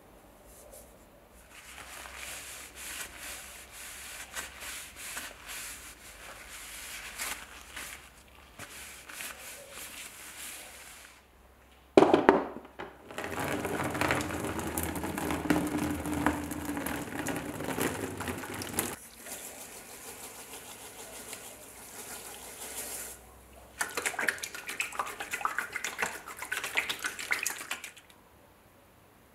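Hot water poured in a stream into a plastic storage tub for several seconds, right after a sharp clack. Before it comes quieter rustling of gloved hands handling a steel bayonet, and near the end there is a shorter stretch of water and handling noise.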